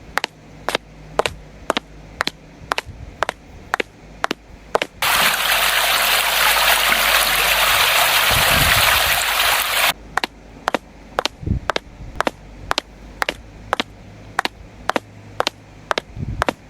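Evenly spaced sharp clicks, about three a second, over a low steady hum. About five seconds in, a loud rushing hiss like gushing or spraying water cuts in and stops abruptly about five seconds later.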